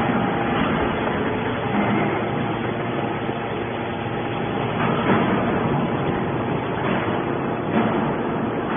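Hydraulic scrap metal baler running, a steady machine noise with a faint hum from its motor and pump, and brief louder surges about five and eight seconds in.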